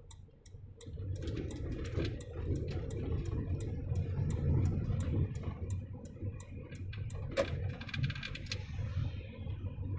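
A car's turn-signal indicator ticking evenly, several ticks a second, over the low hum of the engine and tyres heard inside the cabin while the car creeps forward in queueing traffic.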